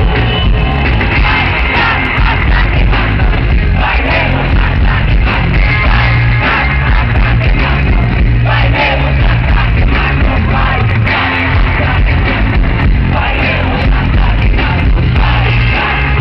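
Live rock band playing loud, a male singer over keyboards, drums and heavy, pounding bass.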